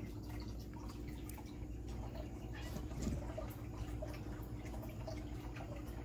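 Aquarium water trickling and dripping over a steady low hum, with small ticks and one soft knock about three seconds in.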